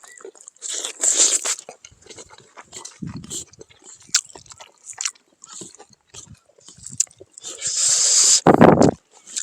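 A person eating pork fat and pig snout close to the microphone, with biting and chewing and irregular wet mouth clicks. There are louder noisy bursts about a second in and near the end, then a short loud low thump just before the end.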